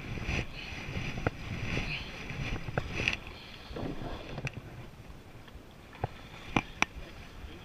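Water splashing and dripping around a plastic sit-on-top kayak as it is paddled in to a rocky shore, with sharp knocks on the hull scattered throughout; the splashing fades about four seconds in, and the two loudest knocks come close together near the end.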